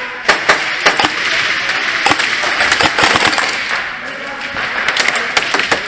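Airsoft gunfire: irregular sharp cracks and clicks of shots and BBs striking plywood walls, a few at a time, over a steady background clatter with distant voices.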